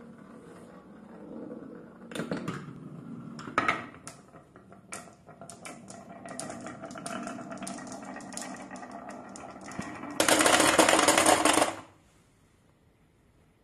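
Glass marbles rolling down wooden marble-run tracks, with a stretch of fast clicking as they knock against each other and the wood. About ten seconds in there is a much louder burst of noise lasting a second and a half, and then it goes quiet.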